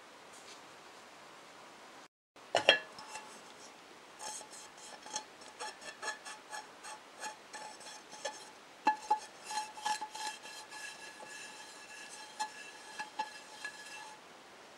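Aluminium pan being handled: a sharp knock about two and a half seconds in, then a run of light clicks and taps as a hand rubs over its freshly seasoned, oiled inside. The pan rings faintly at a few steady pitches. The tapping stops shortly before the end.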